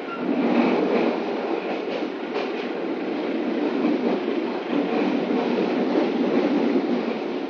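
A moving passenger train heard from inside the carriage: a steady rumble and rattle of the wheels running on the rails, growing louder just after the start, with a few faint clicks around two seconds in.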